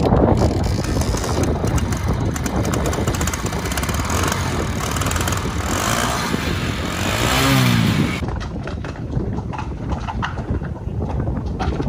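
A vehicle engine running amid dense rumbling noise, its pitch rising and falling briefly about two-thirds of the way through.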